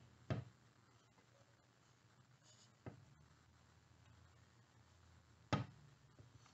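Three short knocks of a Honda GL1100's aluminium rear engine cover being handled on a wooden block on a workbench, the loudest about five and a half seconds in; near silence in between.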